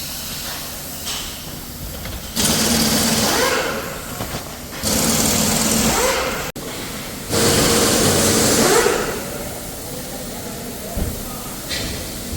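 A small motor-driven tool running in three bursts, each about one and a half to two seconds long, with a short pause between them.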